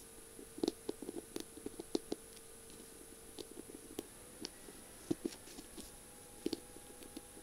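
Long fingernails tapping on a feather pen's barrel, which is covered in tiny beads and mirror-like rhinestones: light, irregular clicks, some in quick little runs, over a faint steady hum.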